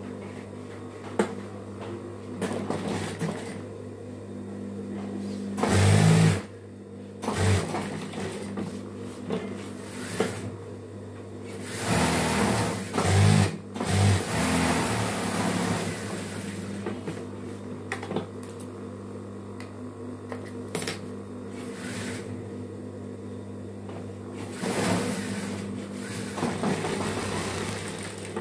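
Industrial lockstitch sewing machine stitching satin fabric in a series of short runs, with a steady motor hum between them. The loudest runs come about six seconds in and from about twelve to fifteen seconds.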